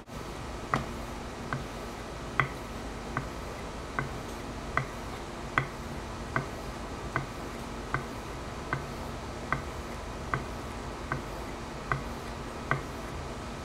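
Hand plane iron being stropped by hand on a leather strop loaded with green polishing compound, clicking sharply at an even pace of a bit more than one click a second, over a steady low background hum.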